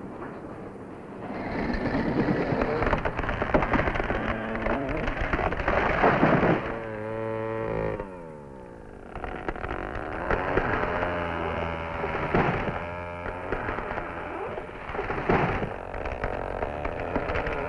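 Two-stroke chainsaw cutting into a tree trunk, starting about a second in at full revs. Its engine drops back toward idle about seven seconds in, then speeds up again and keeps running with changing revs.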